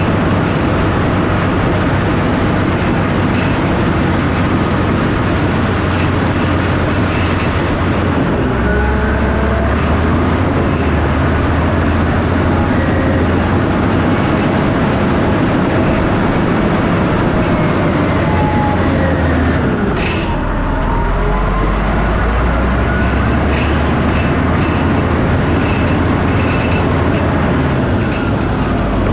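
An earthmoving machine pushing topsoil runs loudly and steadily under load, its engine note shifting about 8 seconds in and dropping lower about 20 seconds in, with faint squeals over it.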